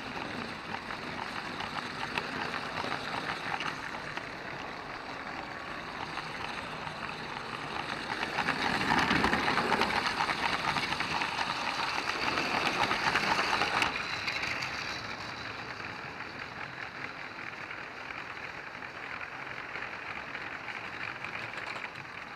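Motorised LEGO train running along plastic track: a steady rumble and fast clatter of wheels and motor, picked up by a camera riding on the train. It grows louder for several seconds midway through, then settles back.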